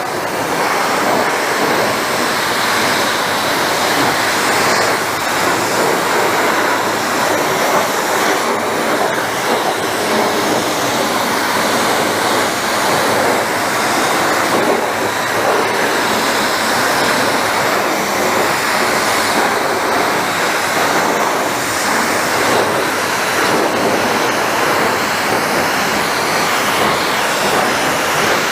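Car-wash pressure wand spraying a steady, unbroken jet of water onto a motorcycle.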